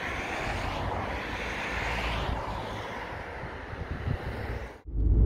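A steady rush of wind and road noise that swells about two seconds in. Near the end it cuts off suddenly to a louder low rumble of a car driving.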